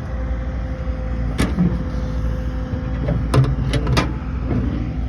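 Sharp metallic clicks and knocks of an excavator's side access panel being unlatched and opened: one about a second and a half in, then three close together between about three and four seconds in. A steady low rumble lies under them.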